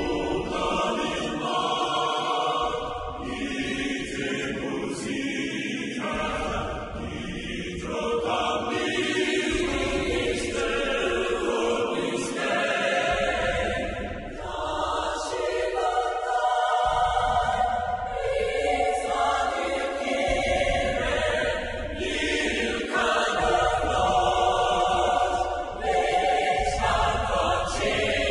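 Orchestral soundtrack music with a choir singing sustained chords.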